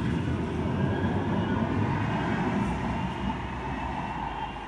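Manchester Metrolink tram (Bombardier M5000) pulling out of the stop: a steady low rumble with a faint motor hum, growing quieter over the last second or two as it moves off.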